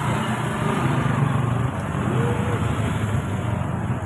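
Small motorcycle engine running as the bike rides slowly past close by, over the hubbub of a crowded street.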